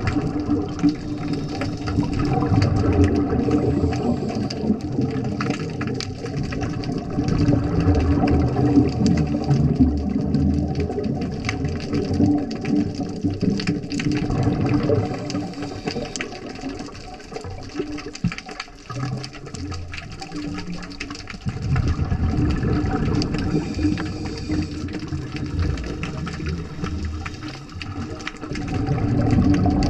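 Underwater water noise picked up by a diving camera: a continuous rushing, bubbling sound with a low rumble that swells and fades every few seconds.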